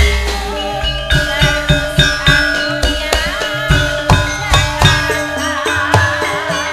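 Javanese gamelan ensemble playing: kendang drum strokes over ringing bronze metallophone and gong notes, with a wavering melodic line above.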